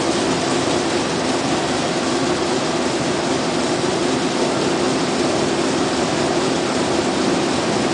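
Yitai needle loom running at speed while weaving zipper tape, giving a steady, unbroken mechanical clatter and hum.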